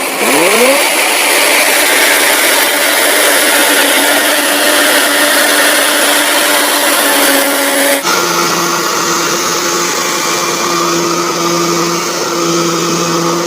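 Kubota DC70 combine harvester's diesel engine running loud and steady while harvesting rice, revving up in the first second. About two-thirds through, the sound changes abruptly to a lower, steady hum.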